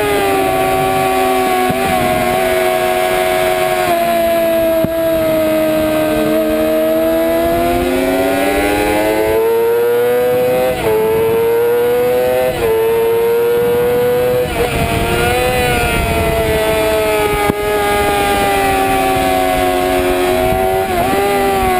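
Sport motorcycle engine running hard at high revs, heard from the rider's seat: the pitch climbs under acceleration and drops sharply at two quick upshifts about halfway through, then falls off and climbs again.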